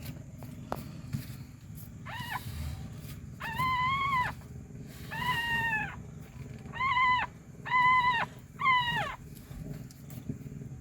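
Newborn kitten mewing: six high-pitched cries, the last three close together.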